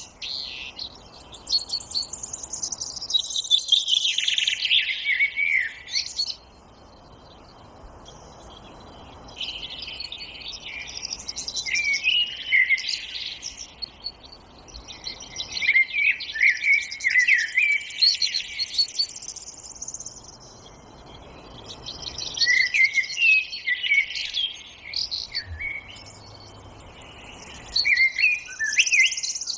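Forest songbirds singing: bouts of quick, high, warbling chirps a few seconds long, about five of them, separated by short pauses, over a faint steady background hiss.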